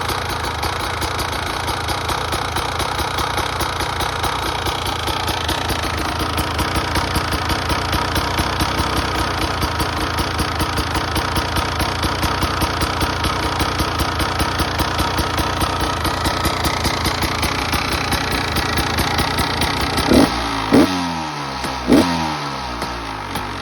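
2017 Beta 300RR two-stroke single-cylinder engine idling with a fast, even pulse, then three quick throttle blips near the end, each falling back to idle. It is run to check for a sound the owner suspects may be piston slap.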